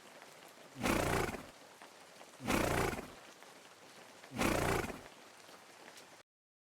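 Three short horse calls, each under a second and about two seconds apart, over a faint background hiss. The sound cuts out abruptly near the end.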